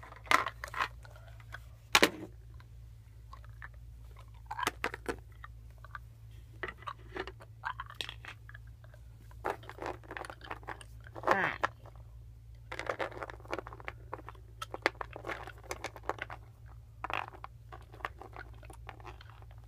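Small plastic toy figurines being handled and set down on a tabletop and playset: scattered clicks, taps and scrapes, with close handling rustle. The sharpest clicks come near the start and about two seconds in.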